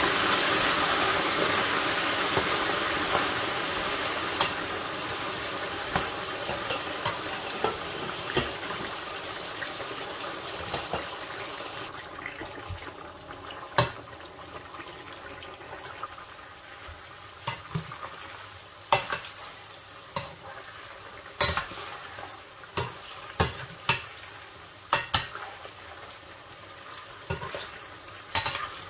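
Raw salted potato sticks deep-frying in hot oil, sizzling hard just after going into the pan and gradually quietening. A slotted spatula stirring them clicks and knocks against the enamelled pan, more often in the second half.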